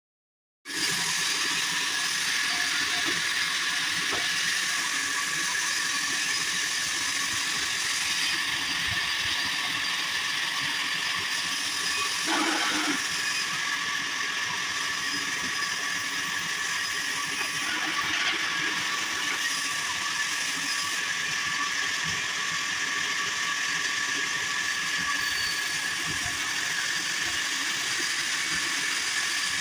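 Sawmill band saw and log carriage running: dense, steady mechanical noise with a constant high whine, starting abruptly just under a second in, with a brief louder rattle near the middle.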